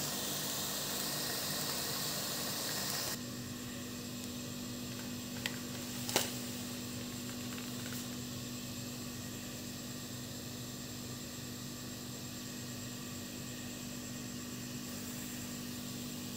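Food sizzling in a pan for about three seconds, then a sudden cut to a steady low hum with faint hiss, broken about six seconds in by two light clicks.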